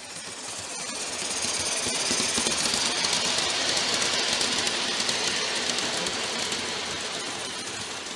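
A 1:20.3-scale live-steam train passing close by on garden-railway track: the metal wheels of a long string of freight cars make a dense, rapid clatter on the rails. It swells over the first second or so and fades toward the end as the train goes by.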